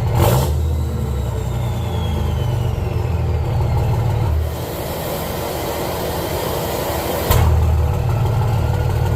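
5.9 Cummins turbo-diesel running loud, with a high turbo whistle falling in pitch over the first few seconds as the turbo spools down. About seven seconds in the engine sound surges suddenly louder.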